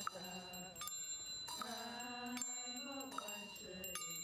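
Group religious chanting with a small ritual bell struck several times, its high ringing tones hanging on; a quick run of strikes comes near the end.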